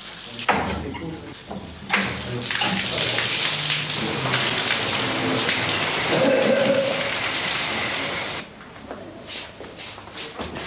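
A jet of water from a hose spraying through chain-link mesh onto a person: a loud, steady hiss of water that starts suddenly about two seconds in and cuts off abruptly a couple of seconds before the end, with voices over it.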